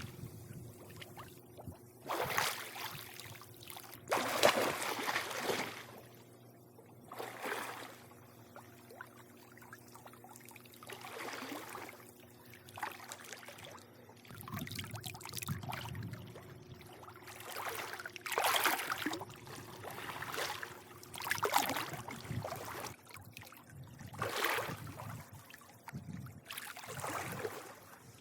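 Swimming-pool water lapping and sloshing against the pool edge in irregular surges about every three seconds, over a steady low hum.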